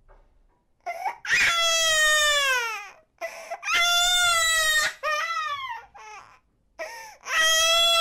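An eight-month-old baby crying: after a brief lull, three long wails, each falling in pitch at its end, with short catching cries between them.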